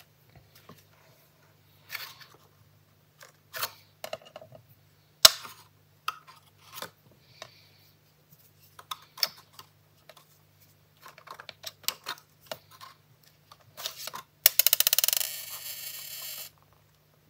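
Paper and craft materials handled on a work table: scattered light taps and rustles. Near the end comes a fast run of clicks lasting about two seconds.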